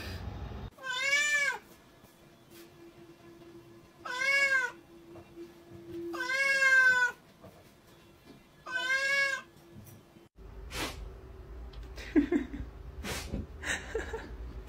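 Domestic cat meowing four times, each meow rising then falling in pitch, with a faint steady hum beneath. After about ten seconds the meows stop, leaving scattered light knocks and room noise.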